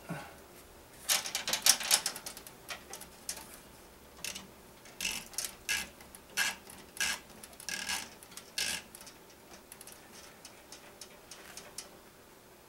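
Irregular clicks and light knocks from a hand tightening a barb fitting on water-cooling tubing inside a PC case. They come in a quick cluster about a second in, carry on more sparsely until about two thirds through, and then fade to faint ticks.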